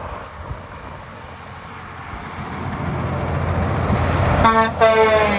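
Heavy haul truck approaching, its low engine rumble growing louder, then two short honks of a vehicle horn near the end.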